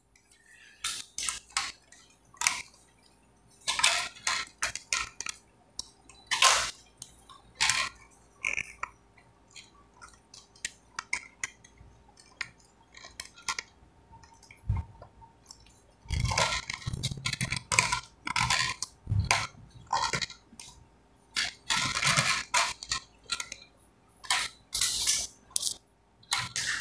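Plastic ring light and tripod mount being handled and screwed together: scattered clicks, knocks and rattles as the light is twisted onto its stand, with denser stretches of scraping and clattering about two thirds of the way through.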